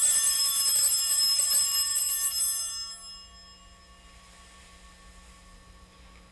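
Altar bells ringing at the elevation of the consecrated host, a bright metallic ringing that holds for about three seconds and then dies away. The ringing marks the moment the host is raised after the words of consecration.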